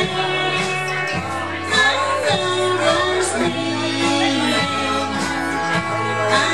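Live country band playing: a woman singing over guitar, Fender steel guitar, harmonica, upright bass and drums, with steady bass notes and gliding steel or vocal lines.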